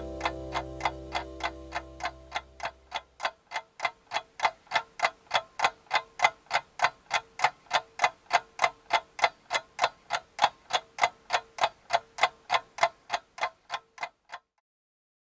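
Water clock's brass movement ticking steadily, about three ticks a second, stopping abruptly near the end. Music fades out under the ticking in the first few seconds.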